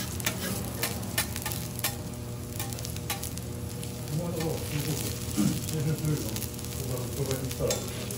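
Garlic slices sizzling in oil on a steel teppanyaki griddle, with the clicks and scrapes of a metal spatula and carving fork moving them across the plate. The clicking is busiest in the first few seconds.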